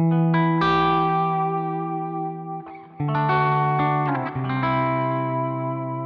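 Duesenberg electric guitar played through Blue Cat's Destructor amp-modelling plugin on a crunch preset: crunchy, distorted chords struck about four times and left to ring.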